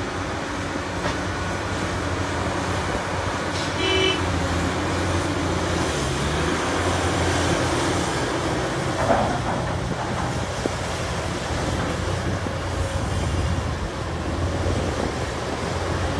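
Caterpillar 6015B hydraulic mining excavator's diesel engine running steadily under load while it digs and swings rock. A brief high tone sounds about four seconds in.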